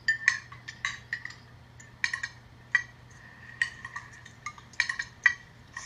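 Cutlery clinking against china plates: a series of irregular, sharp clinks, each with a short ring.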